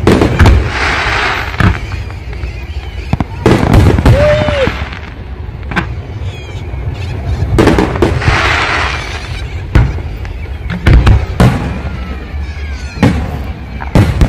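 Aerial fireworks display: repeated booms of shells bursting, with long crackling showers about a second in and again around eight seconds. A brief rising-then-falling whistle sounds near the middle.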